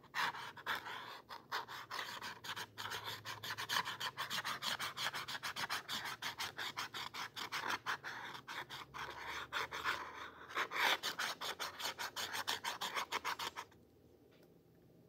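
A felt-tipped pen scribbling quickly back and forth on a canvas board, about four or five scratchy strokes a second, stopping near the end.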